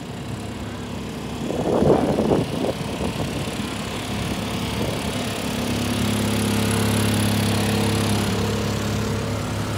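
A small engine running steadily, growing louder in the second half. A brief louder, uneven burst comes about two seconds in.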